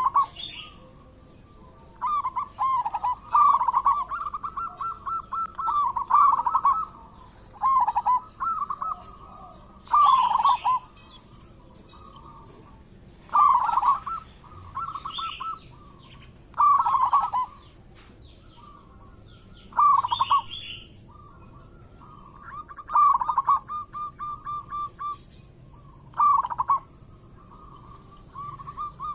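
Zebra dove (perkutut) cooing: short rolling coo phrases repeated every two to three seconds, some running into a quick even string of notes.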